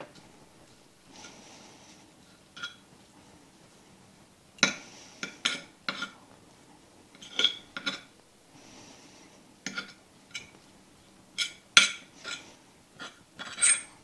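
Metal forks clinking and scraping on a ceramic plate while shredded chicken is lifted off it: about a dozen sharp, irregular clinks, mostly in the second half.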